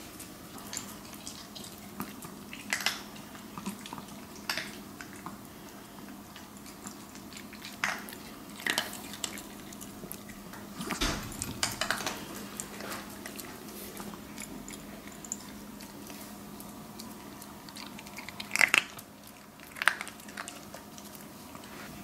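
Maltese dog eating dry kibble from a glass bowl: scattered crunches and clinks of kibble against the glass, with the two loudest clinks a few seconds before the end, over a faint steady hum.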